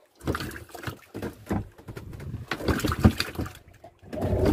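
Irregular knocks and clatter of handling on a small wooden fishing boat. Near the end, the boat's engine starts and runs with a steady low hum.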